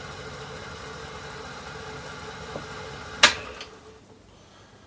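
Myford ML7 lathe running at its highest spindle speed, a steady, smooth and quiet hum with no discernible vibration. A sharp click about three seconds in, after which the motor and spindle run down and the sound fades.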